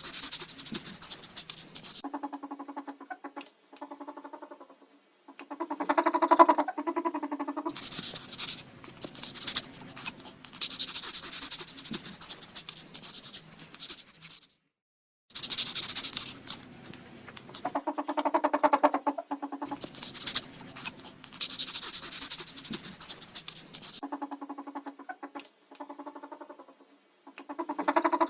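Ferret dooking: a rapid, pitched clucking chatter, alternating with stretches of scratchy scrabbling and rustling. The same sequence plays through twice, with a short gap about halfway.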